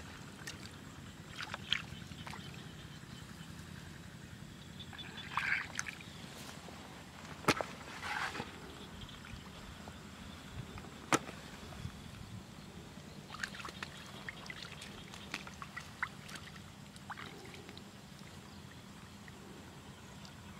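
Hands splashing and squelching in shallow muddy paddy water while grabbing fish, in short irregular bursts, with a few sharp clicks.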